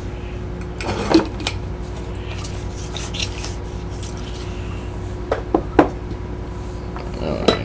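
A few short clicks and clinks of small tools and objects handled on a workbench, over a steady hum.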